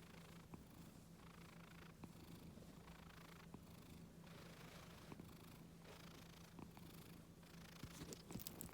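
Scottish Fold cat purring softly, the purr swelling and easing with each breath about once a second. A few faint clicks near the end.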